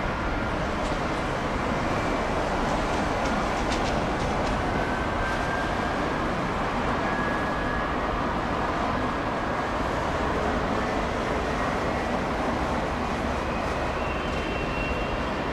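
Jet airliner engines running at a distance: a steady roar with a faint whine that slowly rises in pitch.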